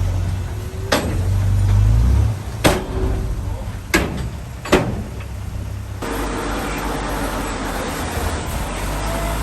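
Heavy diesel earthmoving machinery running, its deep engine rumble easing after about two seconds. Four sharp metallic clanks come between about one and five seconds in, and a broader rumbling noise takes over near the end.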